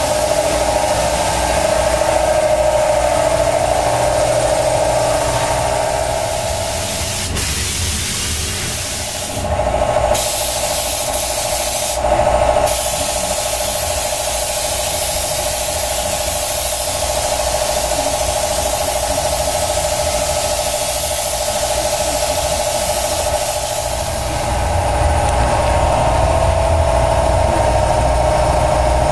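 Gravity-feed compressed-air spray gun hissing steadily as paint is sprayed onto a car, over a steady humming tone. The hiss eases off briefly about a quarter of the way in and again near the end.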